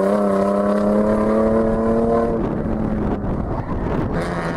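BMW 5 Series rally car's engine held at steady high revs as it slides wide on the stage. The engine note stops abruptly about halfway through, giving way to rougher, noisier sound.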